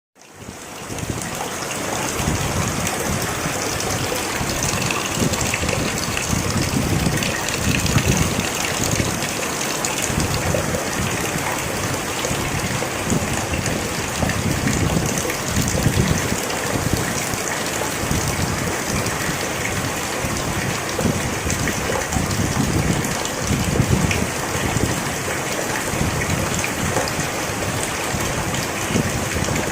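Steady rain falling, an even wash of drops that fades in over the first second.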